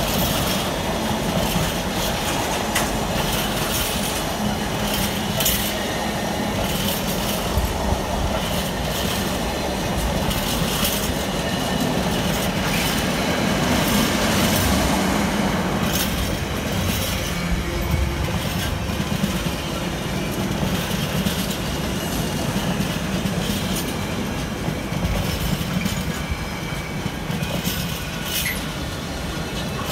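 A long freight train of empty container flat wagons passing at speed: a steady rumble and rattle of wheels on the rails, with scattered sharp clicks, easing slightly near the end.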